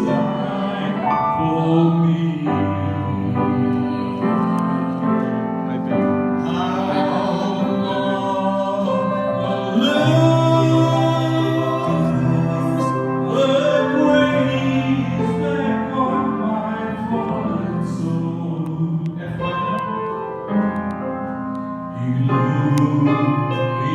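Keyboard playing held, slowly changing chords with a man singing over it.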